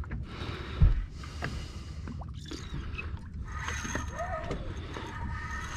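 Water sloshing against a boat's hull over a steady low rumble, with one sharp thump about a second in.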